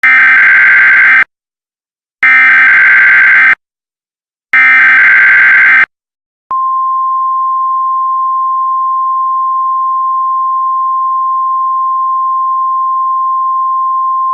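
Emergency Alert System header: three bursts of warbling digital data tones, each a little over a second long with a second's gap between them. About six and a half seconds in, a single steady attention tone near 1 kHz starts and holds, announcing a new alert message.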